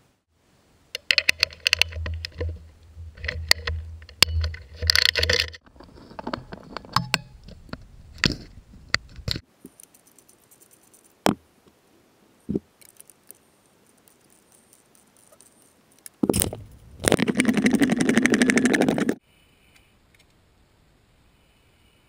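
Metal hand tools clicking and rattling, then a socket ratchet clicking rapidly for about two seconds near the end as the rear brake caliper mounting bolts are loosened with a 12 mm socket.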